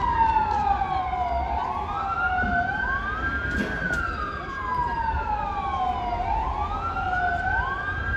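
Fire engine sirens wailing, two of them out of step. Each slowly falls in pitch over two or three seconds, then climbs quickly back to the top and holds there briefly.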